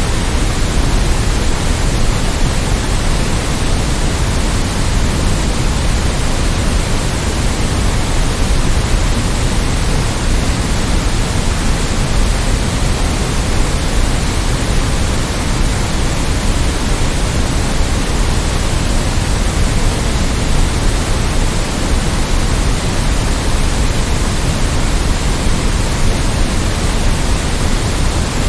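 Steady synthetic white noise: an even, unchanging hiss across the whole range, with the most weight in the low end.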